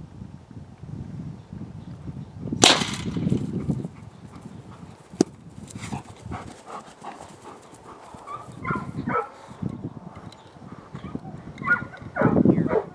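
A single sharp gunshot about two and a half seconds in, with a short rumble after it, as a mark is shot for a retriever. Later come two groups of short, pitched calls.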